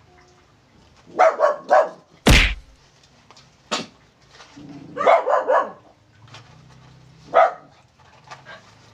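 Long-haired dog barking in short bursts, begging for the fries being eaten in front of it: two quick barks, a single sharp one, a run of three, and one more near the end. A loud thump falls just after the first pair.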